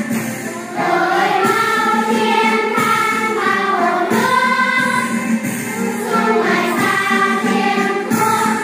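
Music: a song sung by a choir of voices, going on without a break.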